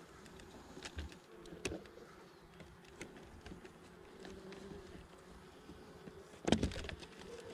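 Honey bees buzzing around an opened hive, a steady low hum. A few light clicks, then a louder knock about six and a half seconds in.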